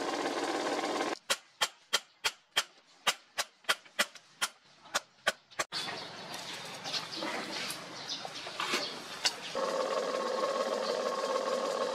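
Steel hammer striking a chisel set on a rusted steel leaf spring, about fifteen sharp ringing blows at roughly three a second. The blows are framed by the steady rush of a charcoal forge fire, with a steady hum coming in near the end.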